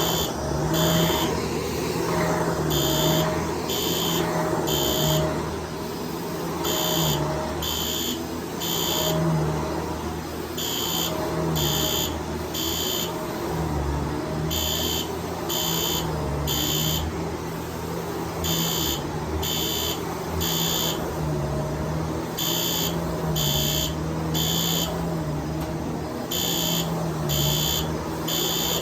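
System Sensor SpectrAlert Advanced P2R fire alarm horn sounding the code-3 temporal pattern, the standard evacuation signal: three beeps about a second apart, repeating about every four seconds. Under it, a Shark DuoClean vacuum cleaner runs steadily.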